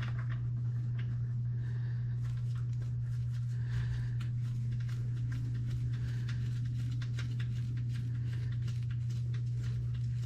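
A steady low hum, with light scattered clicks and ticks over it.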